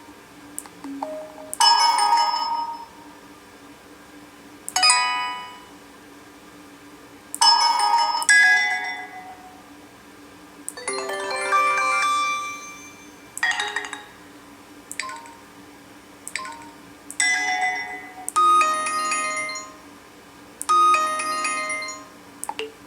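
HTC Desire 610 notification tones played one after another from the phone's speaker: short electronic chimes and jingles, a new one every two to three seconds, each dying away quickly.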